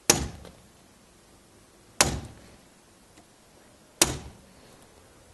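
Three hammer blows on the barrel of an ABUS Bordeaux folding bike lock, evenly spaced about two seconds apart, each a sharp metallic strike with a short ring after it.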